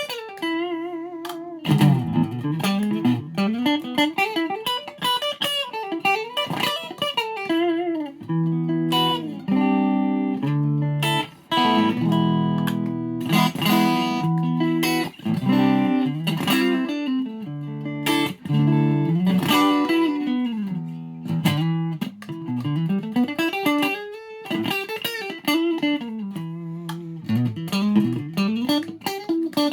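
Ibanez SA260 electric guitar with an SSH pickup set, played solo. Fast single-note runs sweep up and down in pitch, with a held vibrato note near the start. Held chords and notes fill the middle stretch before the runs return.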